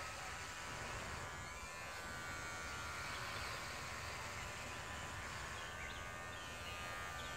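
Electric hair clippers running with a steady buzz as they shave through long hair.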